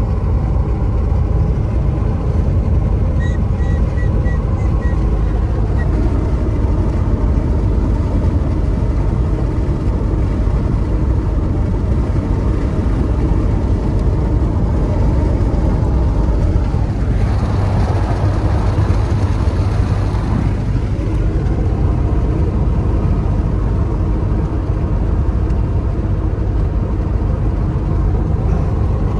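Steady road rumble and tyre noise of a car driving on a highway, heard inside the cabin. A little past the middle a louder rush swells for a few seconds, then settles back.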